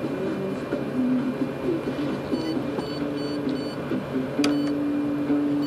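A run of short electronic beeps over a low machine hum. A click follows, then a steady low motor-like hum that runs for nearly two seconds and cuts off suddenly.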